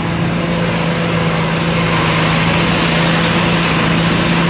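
5TG-80 paddy rice thresher running at a steady pitch while a bundle of rice stalks is fed into its drum. A rustling, hissing threshing noise grows louder about two seconds in as the stalks are stripped.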